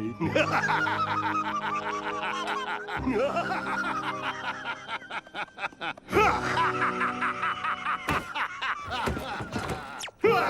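Cartoon soundtrack: background music under rapid, pulsing laugh-like voices.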